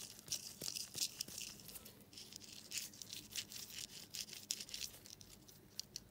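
Camshaft ball bearing from a JS171FFM 250 cc ATV engine spun by hand, giving a faint, gritty rasping with small irregular clicks: the sound of a rough, worn bearing.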